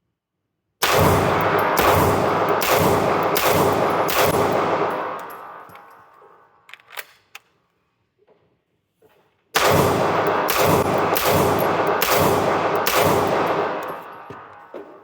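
Two strings of rapid pistol shots from a SIG Sauer P226-X Legion SAO, each about half a dozen shots roughly two-thirds of a second apart with an echoing tail, the first starting about a second in and the second about ten seconds in. A few small mechanical clicks come in the gap between the strings.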